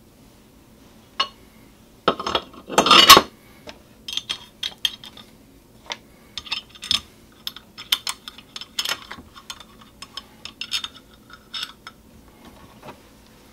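Aluminum soft-plastic bait mold being handled: a run of sharp metal clinks and knocks as the mold halves and pins are moved and opened, loudest about two to three seconds in.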